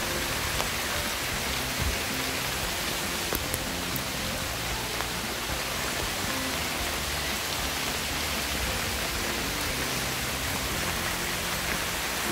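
Heavy rain falling steadily on trees and waterlogged grass, an even hiss.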